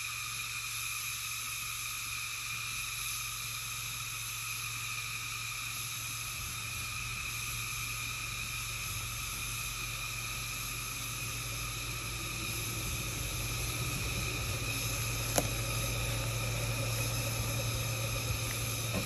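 Ford Escape SUV's engine running as it climbs a dirt trail toward the listener, growing louder over the last several seconds, under a steady chorus of insects. A single sharp click about fifteen seconds in.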